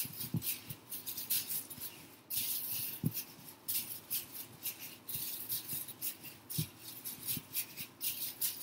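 Plastic bag strips crinkling and rustling as they are braided by hand, in short irregular rustles several times a second.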